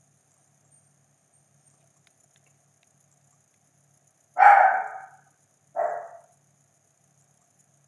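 A dog barking twice, about four and a half seconds in and again a second and a half later, the first bark the louder.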